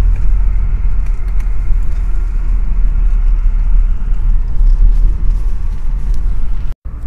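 Steady low rumble of a car's engine and tyres on a snow-covered road, heard from inside the cabin. The sound cuts out for an instant near the end.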